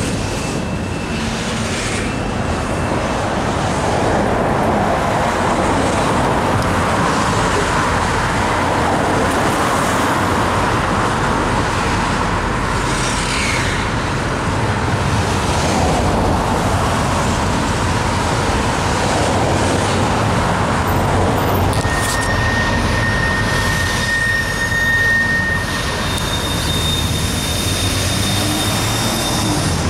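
Intermodal freight cars rolling across a steel girder bridge: a steady rumble and rattle of wheels and cars, with a thin high squeal held for a few seconds about two-thirds of the way through.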